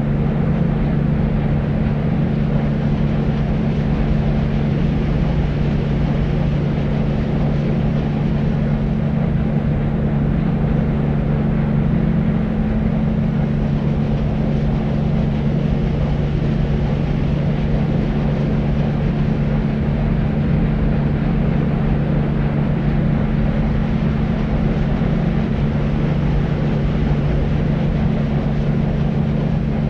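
Deep white noise for sleep: a steady, unchanging low rushing drone with a strong hum in the low range and little hiss at the top.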